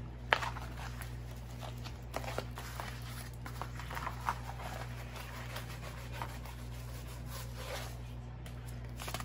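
Plastic packaging of a diamond painting canvas being handled: scattered rustles, rubs and small crinkles, over a steady low hum.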